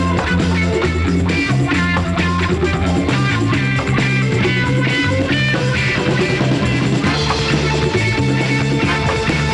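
Instrumental background music with a stepping bass line and a steady drum beat.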